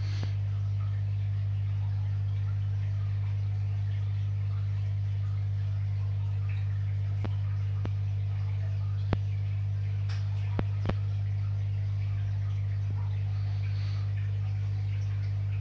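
Steady low hum, with a handful of short sharp clicks around the middle.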